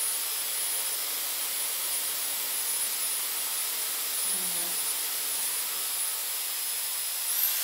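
Dyson Airwrap running with its 40 mm curling barrel: a steady rush of air with a thin high motor whine. Near the end the whine rises in pitch.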